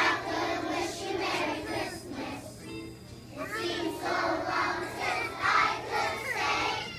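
A choir of young children singing together, with a short break in the singing near the middle.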